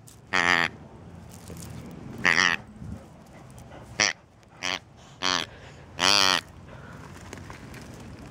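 Squeaker inside a plush hippo dog toy honking as a puppy bites down on it: six short, wavering, duck- or pig-like honks at uneven intervals, the last one the longest.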